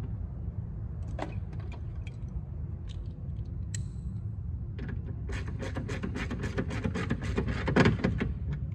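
Socket ratchet clicking rapidly as a bolt is run back onto the side-mirror module, after a few scattered small clicks and taps while the tool is picked up. A steady low hum sits underneath.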